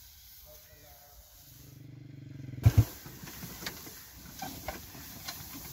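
A water buffalo gives a low moan that swells for about a second. It is followed by two loud thumps and the crackling rustle of a dry straw bundle being carried.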